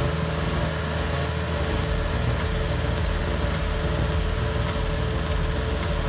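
Kubota DC70 Plus combine harvester's diesel engine running steadily, a constant low drone with a steady higher tone above it.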